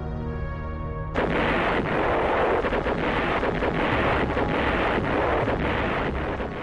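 Sustained music tones, then about a second in a sudden, loud, continuous artillery barrage: a dense rumble of many explosions and shell impacts close together.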